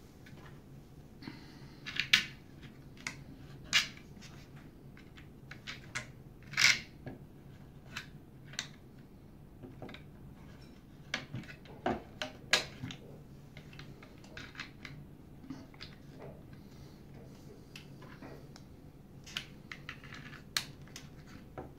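Small screws and parts handled by hand on a plastic encoder wheel and a wooden tabletop: irregular light clicks and taps, a few sharper ones, over a faint steady low hum.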